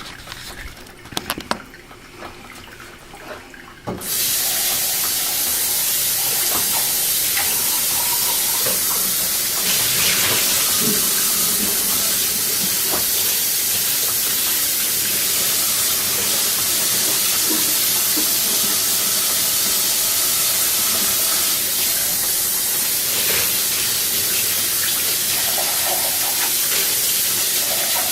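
A few light clicks, then about four seconds in a loud, steady hiss starts abruptly and keeps on without change.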